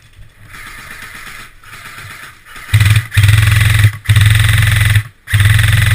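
Airsoft electric gun firing on full auto: its motor and gearbox whirring with a fast rattle of shots, in three loud bursts of about a second each in the second half, after a stretch of fainter fire.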